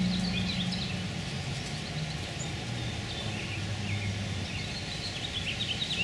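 Low hum of an orange-belted bumblebee flying about comfrey flowers, its pitch dropping about halfway through, with small birds chirping throughout.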